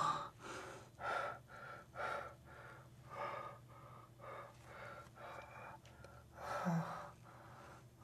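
A person gasping and breathing heavily in ragged breaths, one every half second to a second, with a louder voiced gasp near the end.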